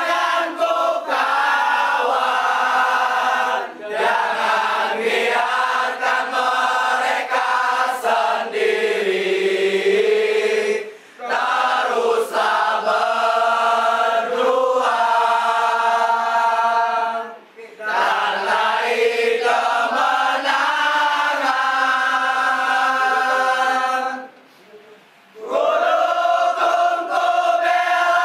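A group of football supporters singing a chant together without instruments, holding long notes. There are short pauses between phrases and a longer break near the end.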